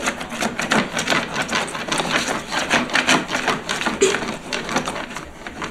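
Scribbling on a wall: rapid, irregular scratching strokes, several a second.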